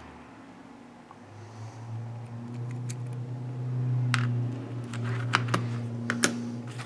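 Small sharp clicks of metal forceps prying an old button-cell battery out of a quartz watch movement and setting it down on a cutting mat, over a steady low hum.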